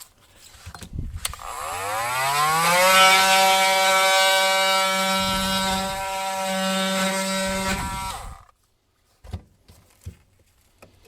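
Handheld power tool motor spinning up over a couple of seconds to a steady high pitch and running for about five seconds on a plastic refrigerator water-filter housing, then shutting off about eight seconds in.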